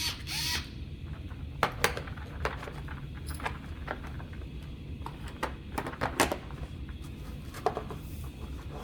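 Small hard-plastic tools and cases being handled and set down: scattered sharp clicks and knocks, a few close together, over a steady low hum.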